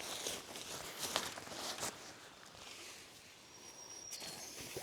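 Faint rustling and a few light knocks from a trekking-pole tent and its pole being handled while it is pitched.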